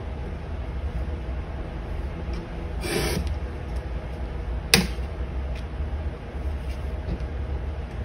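Leather pieces and a steel ruler handled on a cutting mat: a brief scraping rustle about three seconds in and a single sharp tap just before the five-second mark, over a steady low background rumble.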